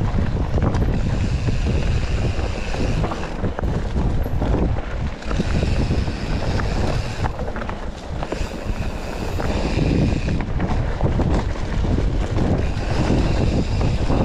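Mountain bike ridden over a rough dirt trail, heard from a camera strapped to the rider's chest: a steady rumble of tyres on the ground, frequent knocks and rattles from the bike over bumps, and wind buffeting the microphone.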